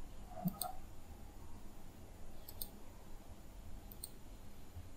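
Faint computer mouse clicks, three times in quick double clicks spread across a few seconds, over a quiet room background.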